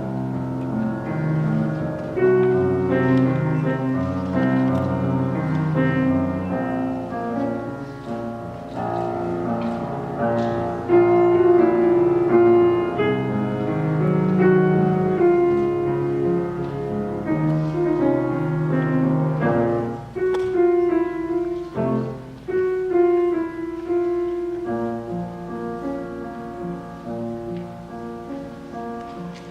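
Piano playing a classical-style passage of held chords and melody, with no voice.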